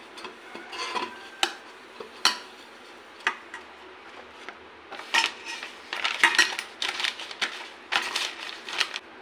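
A stainless steel bowl wiped out with a cloth, with a few sharp clinks and knocks against the metal, then a sheet of paper rustling and crinkling as it is pressed into the bowl from about five seconds in.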